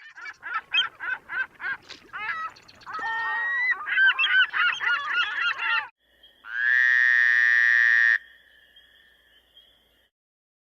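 A flock of birds calling: a quick run of short, evenly spaced calls, then a dense chorus of overlapping calls. About six seconds in, the calls stop and a steady, even tone with many overtones holds for about two seconds, then fades away.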